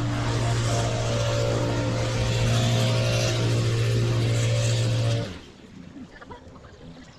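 Small petrol engine of lawn-care power equipment running steadily at high speed with a strong rushing hiss, then cutting off abruptly about five seconds in.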